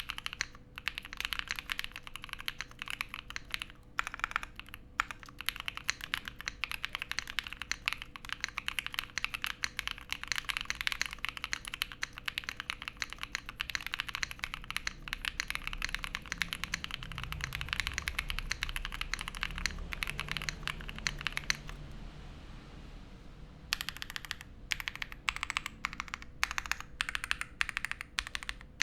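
Fast continuous typing on a Black Diamond 75 mechanical keyboard with stock KTT Wine Red linear switches, an FR4 plate and PBT doubleshot keycaps: a dense run of key clacks. The typing pauses for about two seconds near the end, then resumes.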